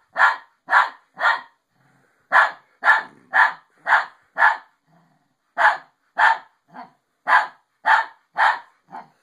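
A small dog barking in short, sharp barks, about two a second, in three runs with brief pauses between them, while playing with another dog.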